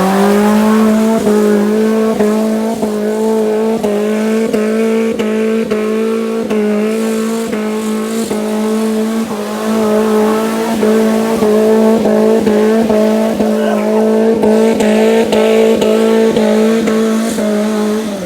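Off-road 4x4's engine held at high, steady revs throughout, dropping back toward idle right at the end.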